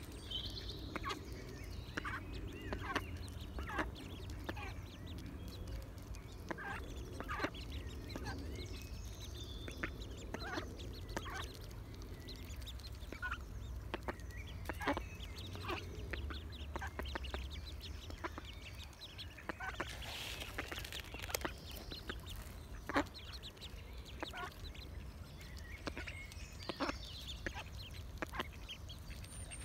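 Mallard hen and her ducklings feeding on seed scattered over grass. Their bills make many quick clicks as they peck at the ground, with duck calls and now and then a brief high duckling peep.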